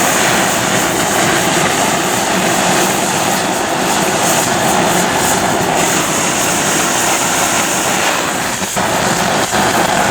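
A loud, steady rushing noise with no clear pitch, dipping briefly near the end.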